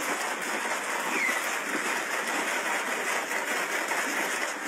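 Wooden paddle scraping frozen nieve (hand-churned sorbet) off the inside of a metal garrafa canister set in a bucket of ice, a steady rough scraping noise without pause.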